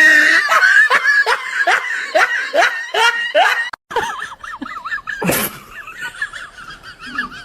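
Hearty laughter in a rapid run of short falling 'ha' sounds, about three a second. It cuts off about four seconds in and gives way to a fast, high wavering sound with one short loud burst.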